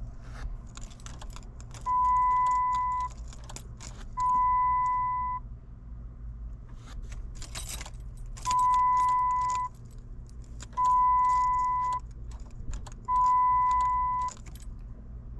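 An electronic beeper sounds five times, each steady beep about a second long and roughly two seconds apart, with keys jangling and clicking between the beeps.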